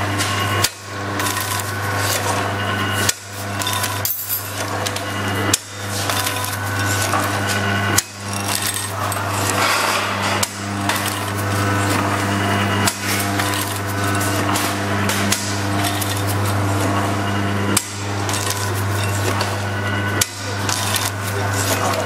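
Automatic liquid sachet packing machine running: a steady motor hum with a sharp metallic clack about every two and a half seconds, one stroke per sachet cycle.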